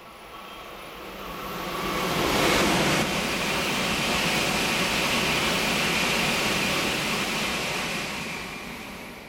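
Tokaido Shinkansen high-speed train passing through a station without stopping. The rush of the train swells over the first two seconds, holds steady while the cars go by, and fades away near the end.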